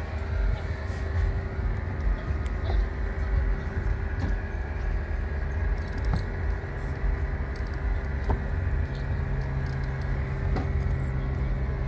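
Sailboat's engine running steadily as it motors in to dock, a continuous low mechanical drone with a steady hum. A deeper hum joins about eight seconds in.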